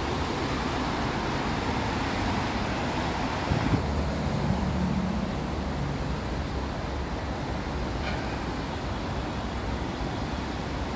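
Steady rumble of vehicle noise, with a couple of sharp knocks about three and a half seconds in.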